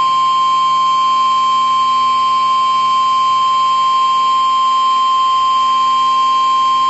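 NOAA Weather Radio's 1050 Hz warning alarm tone: a single loud, steady high-pitched tone that signals a warning message is about to be broadcast.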